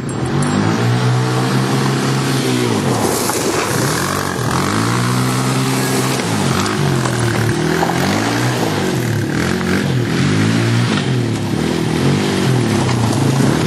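Small youth quad ATV's engine revving up and down over and over while it is ridden in tight turns. Its pitch rises and falls every second or two.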